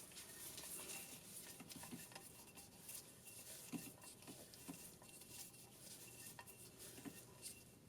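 Faint, scattered metallic clinks and light taps as tools and fittings are handled at the engine while a compression test is set up; no engine running.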